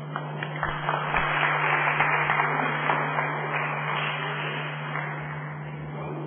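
Audience applauding: dense clapping that swells about a second in and dies away near the end.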